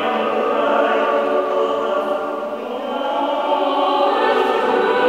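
Large mixed choir of men's and women's voices singing sustained chords, easing slightly about halfway through and then swelling again.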